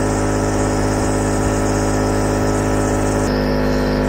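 Nebulizer compressor running with a steady, loud motor hum during an asthma treatment. The hum shifts slightly in pitch a little after three seconds in.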